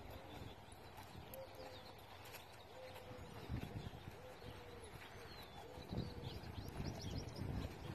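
A dove cooing over and over in a soft, low repeated call, with small birds chirping faintly. A few dull thuds come from a horse's hooves on sand, the loudest about three and a half and six seconds in.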